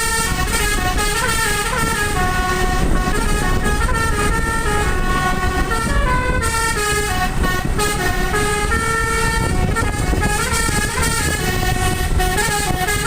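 Basuri-type telolet musical horn on a bus, its set of air-horn trumpets playing a tune of stepped notes that changes pitch every half second or so, over a low rumble.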